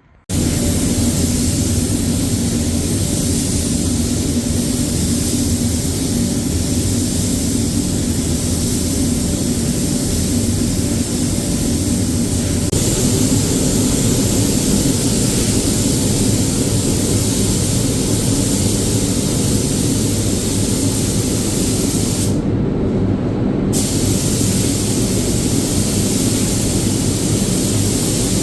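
Paint spray gun hissing steadily as it sprays, over a steady mechanical hum. The hiss stops for a second or so near the end, then starts again.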